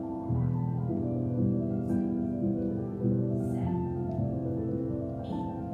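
Slow piano music for a ballet barre exercise, held chords changing about once a second.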